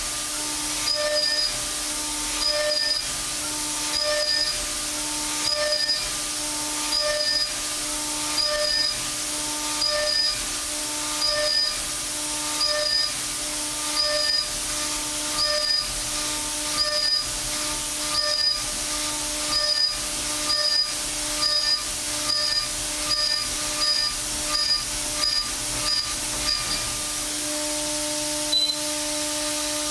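A CNC milling machine spindle runs with a steady whine while a Kennametal Harvi III end mill mills 1018 steel at 1000 inches per minute. Each pass of the tool through the steel adds a short hissing burst of cutting noise. The bursts come about every 1.5 s, quicken to about every 0.7 s in the second half, and stop near the end while the spindle whine carries on.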